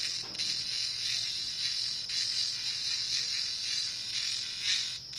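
Cicadas calling: a loud, steady, high-pitched buzz with a rapid pulsing running through it.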